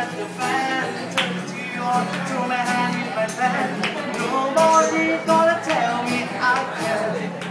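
Acoustic guitar strummed live with a voice singing along.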